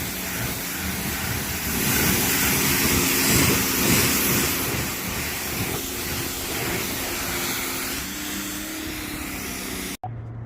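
A pressure washer spraying water: a steady hiss of spray over the hum of the washer's motor, cutting off suddenly near the end.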